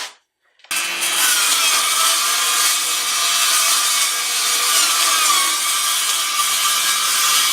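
Power saw cutting through 1/4-inch plywood, starting suddenly under a second in and running steadily through one long cut.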